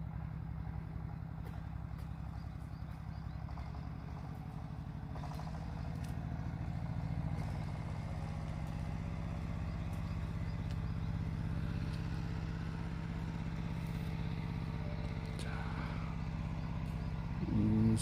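Steady low engine hum running without a break, with a man's voice briefly near the end.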